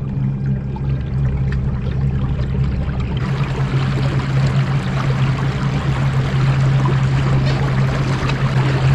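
Fishing kayak moving across a lake: a steady low hum from its drive, and from about three seconds in, water rushing and splashing along the hull as it picks up speed.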